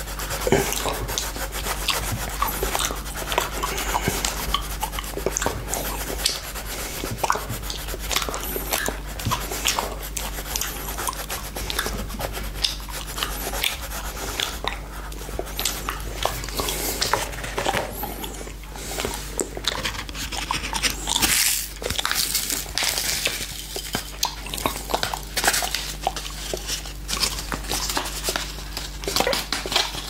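Close-up wet licking on a clear glass saucer: the tongue sliding, smacking and squeaking on the glass in a dense, continuous run of small clicks. A colored pencil is scratching on paper at the same time.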